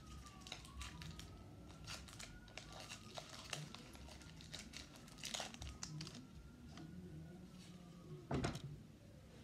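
Foil Pokémon booster pack wrapper being torn open and crinkled by hand: soft scattered crackles, with one louder burst near the end.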